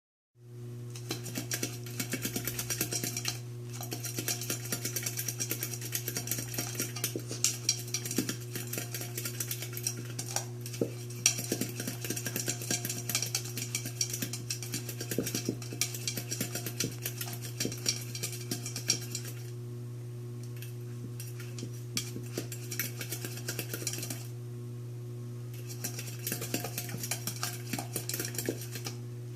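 Small puppy nosing and licking an empty food bowl, rattling and clattering it against the floor in quick irregular clicks, pausing for a few seconds about two-thirds of the way through. A steady low hum runs underneath.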